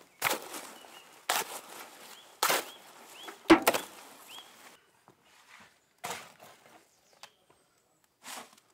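Steel spade scraping and chopping through wet cement mortar in a metal wheelbarrow, a stroke about once a second, the loudest about three and a half seconds in. Fainter, sparser scrapes follow.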